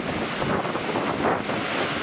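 Wind buffeting the microphone in gusts over the steady rush of a Boeing 787-9's engines as the airliner rolls out on the runway after landing. The gusting eases and the rush turns steadier near the end.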